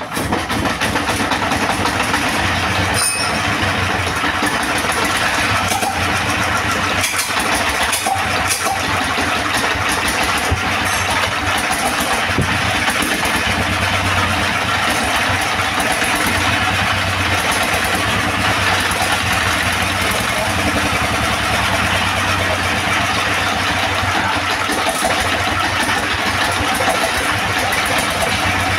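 S1115 single-cylinder diesel engine catching about half a second in after hand-cranking, then running steadily. It starts now that its clogged injector nozzle has been cleaned and refitted.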